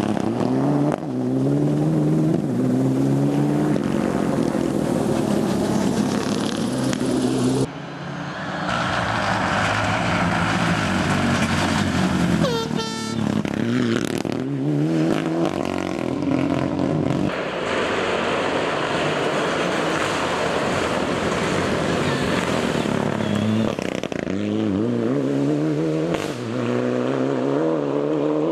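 Mitsubishi Lancer Evolution rally car's turbocharged four-cylinder engine revving hard through the gears as the car passes, its pitch climbing and dropping again at each shift. The sound jumps abruptly several times where separate passes are cut together.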